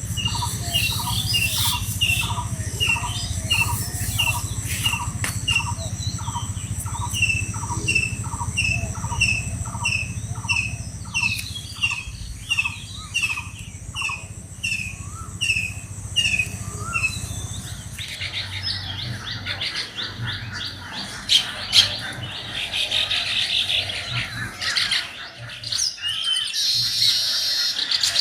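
Birds calling. One bird repeats the same short note about twice a second, then after about two-thirds of the way through it gives way to a denser chatter of higher chirps.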